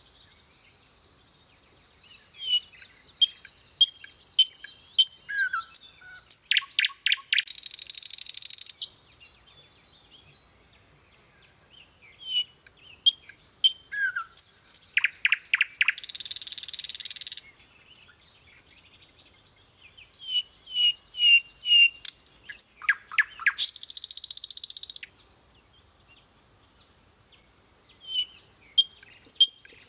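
A songbird singing the same phrase over and over, roughly every eight to ten seconds: a few short high chirps, a falling slurred note, a quick trill, and a harsh buzzy note about a second and a half long at the end of each phrase.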